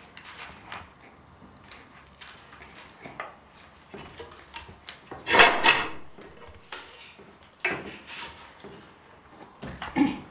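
Small scissors snipping through thin printed paper in short, irregular cuts, with paper handled on a glass tabletop. A louder, brief handling noise comes about five and a half seconds in.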